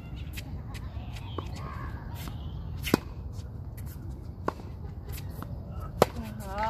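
Tennis ball being hit and bouncing on a hard court: sharp pops every second and a half or so, the loudest about six seconds in as the near player strikes a forehand, over a steady low rumble.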